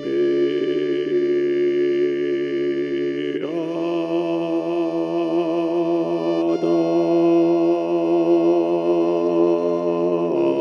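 Electroacoustic music: a sustained drone chord of many steady layered tones, with a brief pitch glide about three and a half seconds in as it shifts to a new chord, and another shift near the end.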